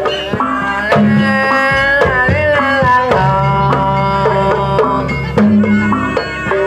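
Jaranan gamelan music: hand drums beat a rhythm under a held, wavering melody line, with deep sustained gong tones beneath.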